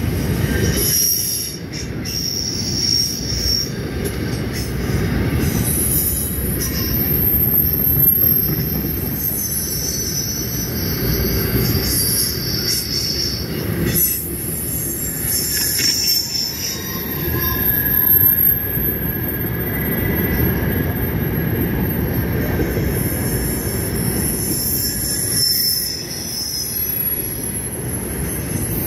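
Covered hopper cars of a grain train rolling past at close range: a steady rumble of wheels on rail, with high-pitched wheel squeal coming and going.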